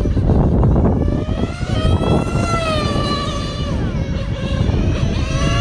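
Small engine of an engine-powered RC car revving high, its whine rising and falling as the car accelerates and slows through the corners. Heavy wind noise on the microphone rumbles underneath.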